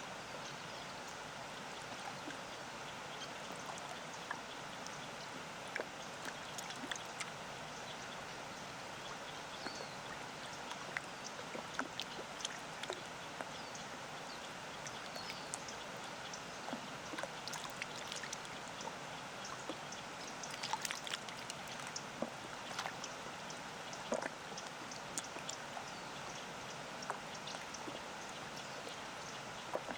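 Small lake waves lapping at the shore, with many little splashes and drips over a steady rushing hiss from a distant waterfall. There are a few faint bird chirps now and then, and the splashing is busier about two-thirds of the way through.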